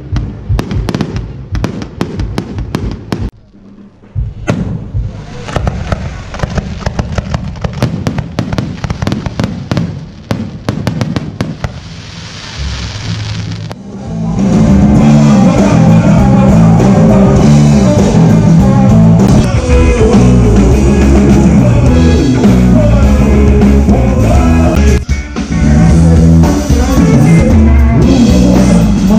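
Fireworks crackling and banging in rapid succession, with a short lull about three seconds in. About halfway through, a rock band with drums, bass and guitar takes over, playing loudly.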